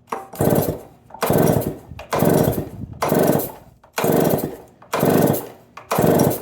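A 105 cc Stihl MS 070 clone chainsaw being pull-started cold with the choke out: about seven quick pulls on the recoil starter, a little under a second apart, each turning the engine over without it catching. The throttle trigger lock has not been set.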